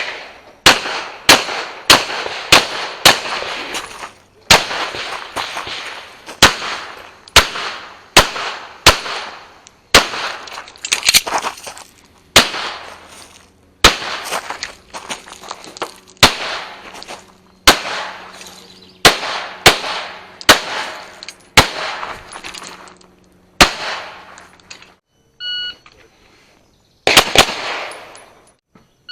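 Pistol shots fired in quick strings, about thirty in all, with short pauses between groups and each shot ringing briefly after it. A short electronic beep sounds about 25 s in, followed by a final quick string of shots near the end.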